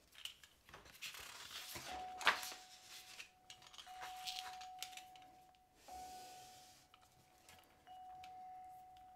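Sheets of paper rustling and sliding on a desk, with pen and coloured pencils on paper and a sharp tap about two seconds in. Over it a single steady high tone sounds again and again, held close to two seconds each time and starting anew about every two seconds.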